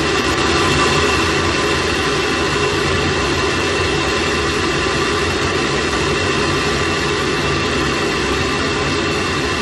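Space Shuttle solid rocket booster still burning during ascent, heard through its own onboard camera microphone: a steady loud roar with a few faint steady high tones riding on it.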